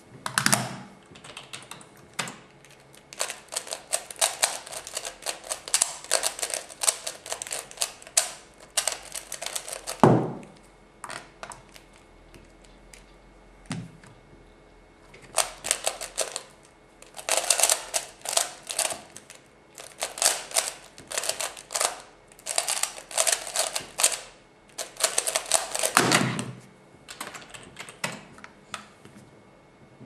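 F-II speedcube being turned fast by hand: long runs of rapid plastic clicking and clacking from the cube's layers, with a few sharp thumps from hands coming down on the table and the timer, the loudest about ten seconds in and near the end.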